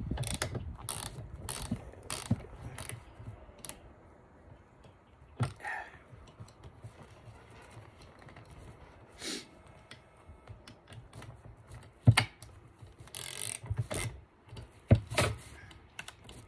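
Torx tool tightening a bolt on a motorcycle backrest bracket: a run of sharp metal clicks a little over half a second apart, then a few scattered clicks, then a busier cluster of clicks and taps near the end as the bolt is snugged up.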